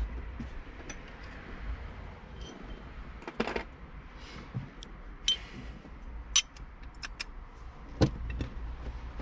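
Scattered metallic clicks and taps of a socket wrench on an extension fishing for the hidden Torx screws of a heater blower motor, with one sharper knock about eight seconds in.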